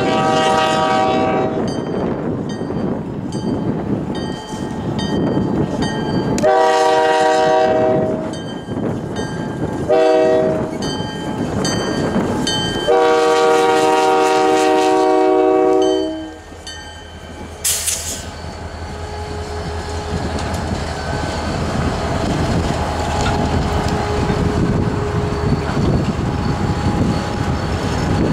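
CN diesel freight locomotive sounding its multi-chime air horn in the grade-crossing pattern: long, long, short, long, the last blast ending about halfway through. A crossing bell rings steadily under the blasts. Then the locomotives rumble past, with a brief hiss soon after, and the autorack cars roll by with steady wheel clatter.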